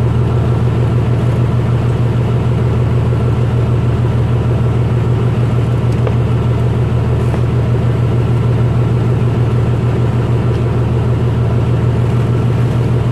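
Fishing boat's engine running steadily under way: a constant low drone with the hiss of the hull and wake over it.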